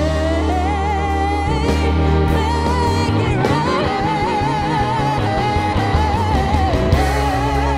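Live band music: a female lead singer holds long notes with vibrato over electric guitar, bass, drums and keyboard.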